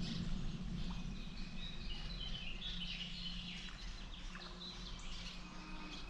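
Several small birds chirping and calling, in short repeated notes and trills, over a steady low background hum.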